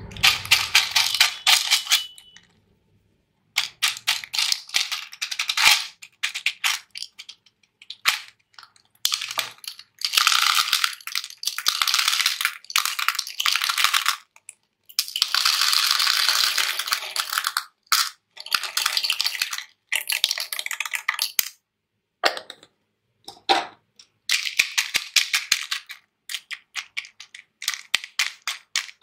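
Small hard colourful pieces poured from a plastic jar, rattling and clattering into a hard plastic tub. The pours come as a run of bursts of dense clicking, each a second or more long, with short pauses between them.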